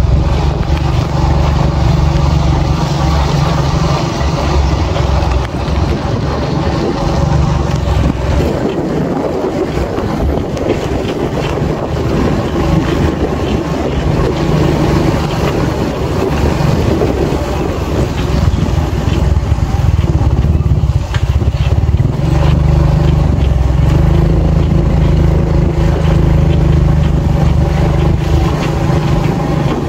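Motorcycle engine running steadily while riding on a dirt road, with wind rushing over the microphone. The engine's steady note thins out briefly a couple of times.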